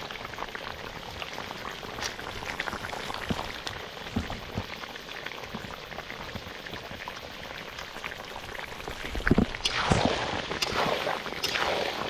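Pork curry bubbling and crackling in the pot with its freshly added meat masala. Near the end come a few louder scraping strokes.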